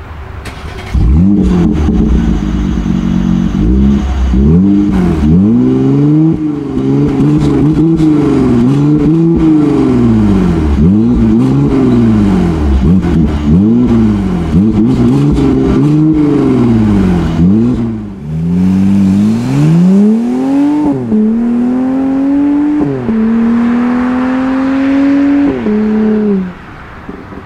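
Mercedes-AMG SLC 43's twin-turbo 3.0-litre V6 and exhaust, starting up about a second in and then revved again and again while standing, the pitch rising and falling with each blip. Later it accelerates hard, the pitch climbing and dropping sharply at each upshift.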